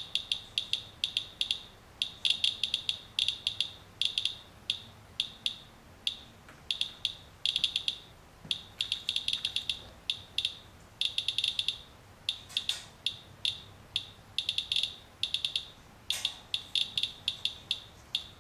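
Radalert Inspector Geiger counter chirping: rapid, irregular clicks that bunch into uneven clusters, each one a detected count, as it measures a rain-wipe sample through a plastic sheet. The owner takes the counts to be beta radiation.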